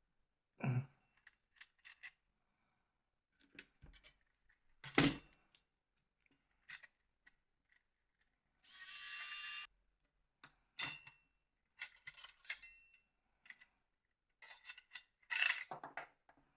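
Scattered clicks and knocks of a mobile phone's metal and plastic parts being handled and pried apart during disassembly, with a louder knock about five seconds in and a short harsh scrape lasting about a second near the middle.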